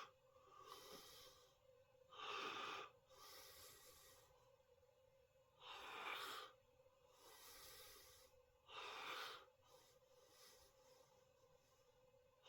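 A person breathing quietly close to the microphone, slow and regular, with a breath about every three seconds, each a louder puff followed by a softer one. A faint steady hum sits underneath.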